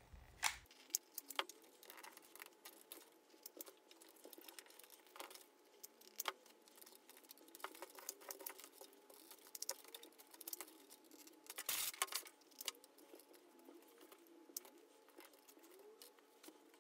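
Chunks of dry, punky wood being handled and pressed into a plastic tray: scattered light clicks, taps and crackles, with a louder cluster of knocks about twelve seconds in.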